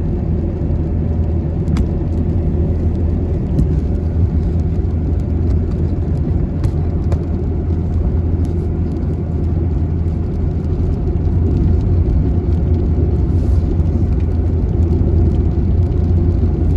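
Road and engine noise inside a moving vehicle: a steady low drone that grows a little louder about two-thirds of the way through, with a few faint clicks.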